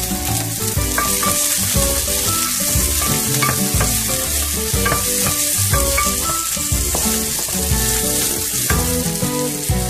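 Sliced onion and garlic sizzling in hot oil in a stainless steel frying pan, stirred with a wooden spatula.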